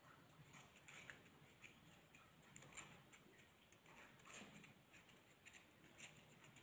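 Near silence with faint scattered ticks and rustles from hands winding green floral tape around a flower's wire stem.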